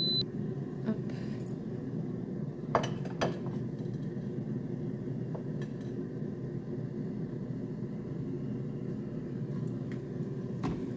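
Granite-coated metal loaf pan clicking and knocking against a ceramic plate a few times as it is turned over and lifted off to unmould a cake, the strongest knocks about three seconds in. A steady low hum runs underneath.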